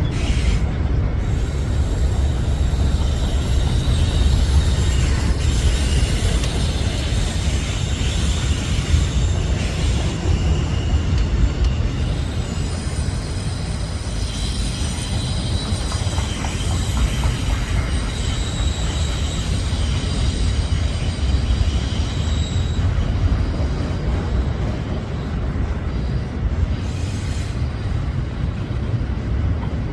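Train rolling past with a steady low rumble of wheels on rail; about twelve seconds in, high steel wheel squeal starts and lasts about ten seconds.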